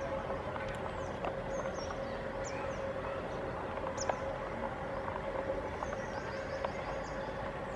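Standing locomotive idling with a steady hum and a constant mid-pitched tone, while birds chirp with short, high, falling calls.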